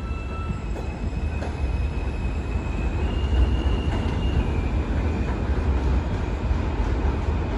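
New York City subway train pulling away along elevated steel track: a steady low rumble of the wheels on the rails, with high wheel squeal held as one tone at a time, stepping up in pitch about three seconds in and down again a second or so later.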